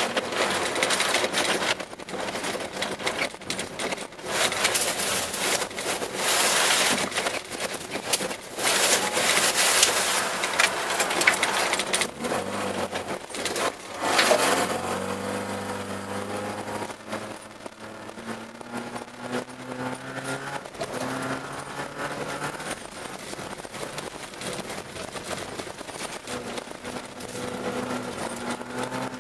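Car heard from inside the cabin on an ice track. For about the first half, a loud rushing, scraping noise of snow and ice hitting the car's body and wheel arches, full of crackles, drowns out the engine. About halfway through this noise dies down and the engine note comes through clearly, rising and falling a few times as the car accelerates and eases off.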